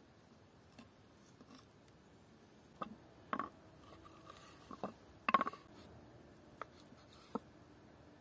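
Quiet, scattered clicks and knocks, about eight in all, irregularly spaced; the loudest comes a little past halfway through.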